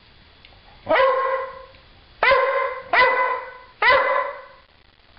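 A dog barking four times at uneven intervals, each bark a pitched call that jumps up at its start and holds for about half a second.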